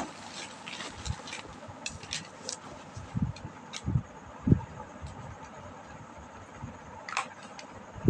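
Scattered light clicks and a few soft thumps as a child's plastic water bottle and its lid are handled, over steady low room noise.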